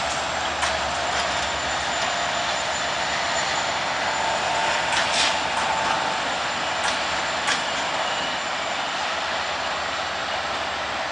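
Passenger coaches of a departing train rolling slowly past, a steady rumble of wheels on rail with a few sharp clicks as wheels pass over rail joints. A thin, steady high whine sounds throughout.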